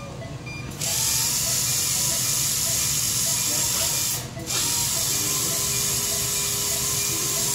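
Dental polisher handpiece with a rubber prophy cup spinning on a dog's tooth with prophy paste, running with a steady hiss. It starts about a second in and drops out briefly about four seconds in.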